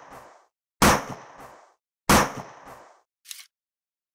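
Gunshot sound effects: two loud shots about 1.3 seconds apart, each fading over about a second with a lighter crack half a second after it, and the tail of an earlier shot at the start. A short high-pitched metallic sound comes near the end.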